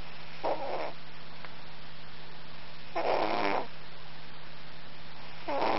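A Norwegian forest cat snoring in its sleep: three short snores about two and a half seconds apart, the last cut off at the end, over a steady low hum.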